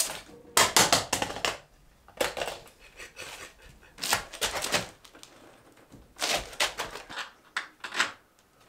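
Wooden-framed glass door knocking and rattling against its frame as it is manoeuvred into the doorway, in about five short bursts of rapid clattering knocks.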